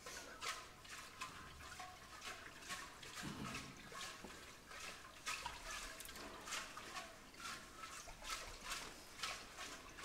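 Short, rhythmic breaths puffed into a large glass demijohn, about two a second.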